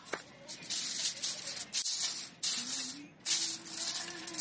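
Aluminium foil crinkling and rustling in irregular bursts as a sheet is pulled out and pressed flat over a metal baking sheet.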